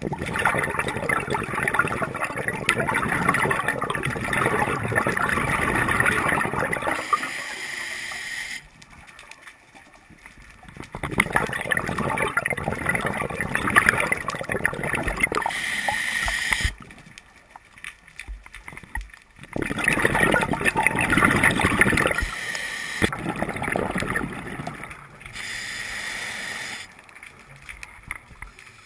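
Scuba diver breathing through a regulator underwater: three long crackling rushes of exhaled bubbles, each followed by a shorter, steady hiss of inhalation through the regulator, with quieter pauses between breaths.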